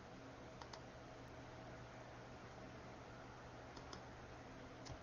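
Near silence: a faint steady hum with a few soft clicks.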